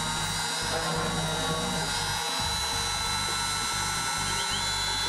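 CNC milling machine with its spindle running at speed, giving a steady high whine, as a 1/8-inch end mill cuts into the top of a black project box under an automatic toolpath. Near the end a second, slightly lower whine briefly rises in and drops away.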